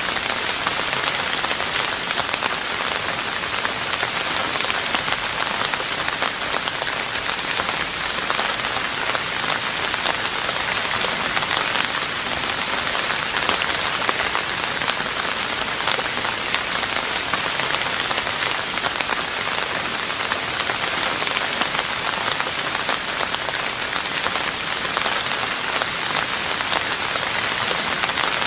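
Steady rain falling on a roof: a dense, even patter of raindrops that neither builds nor fades.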